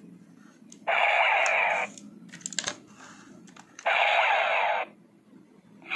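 Bandai DX Den-O Belt toy playing its electronic sound effects through its small speaker in Ax Form mode: two one-second bursts about three seconds apart, with a few light plastic clicks between them.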